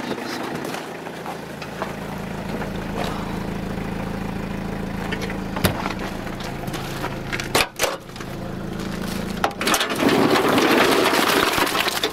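Small truck's engine idling steadily, with footsteps crunching on snow and a few sharp knocks. A louder crunching rustle comes near the end.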